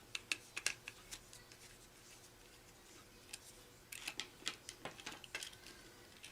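Faint, scattered clicks and light taps from small metal tools and crimp connectors being handled: a few in the first second, then a busier cluster from about four to five and a half seconds in.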